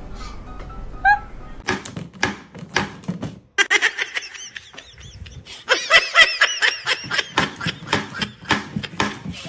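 Laughter in short repeated high-pitched bursts, heaviest in the second half.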